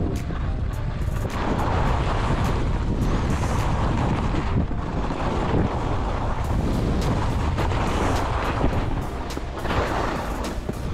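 Wind buffeting the microphone of a camera worn by a skier, with skis hissing and scraping over packed snow on the way down the slope. Music plays underneath.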